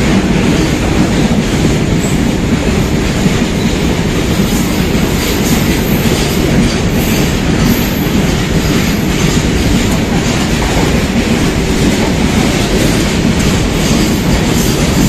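Loud freight train of covered goods wagons passing close by, its wheels rumbling steadily on the rails with a clickety-clack over the rail joints. Some high wheel squealing comes in around the middle.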